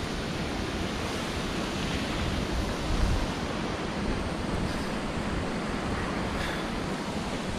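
Steady rushing noise with an uneven low rumble, a little louder for a moment about three seconds in.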